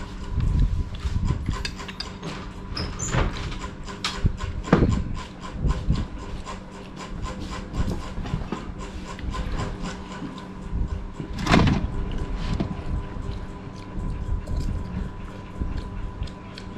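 Metal spoons scraping and tapping on plates of rice and a soup bowl, with irregular clicks from eating, one louder knock past the middle, and a steady faint hum underneath.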